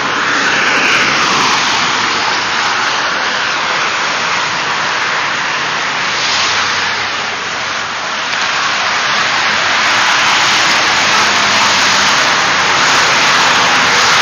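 Freeway traffic: cars passing at speed with a steady tyre-and-engine roar that swells as each one goes by, loudest in the last few seconds.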